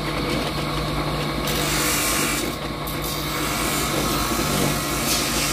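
Bench grinder motor running with a steady hum while a piece of buffalo horn is pressed against the spinning wheel to grind it round. The rasping grind comes in strongly about a second and a half in and eases briefly near the middle.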